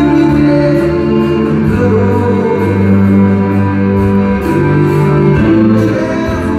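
Live band and string orchestra playing together: acoustic guitar, piano, drums with cymbals, and sustained orchestral strings, heard from the audience in a concert hall.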